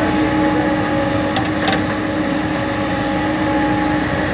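Excavator's diesel engine and hydraulics running steadily with a constant hum, with a few short clicks about a second and a half in.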